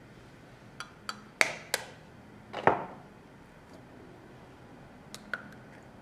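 An egg tapped on the rim of a small bowl and cracked open: several sharp taps, the loudest about two and a half seconds in. Near the end come two lighter clicks of the eggshell halves as the yolk is separated from the white.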